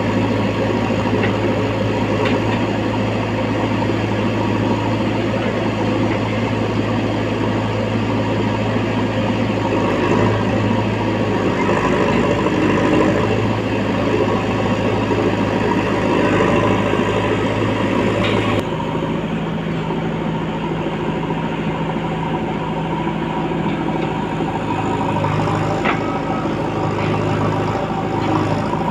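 Diesel engine of a JCB 3DX backhoe loader running steadily. After about eighteen seconds the engine note suddenly changes to a different, higher steady hum.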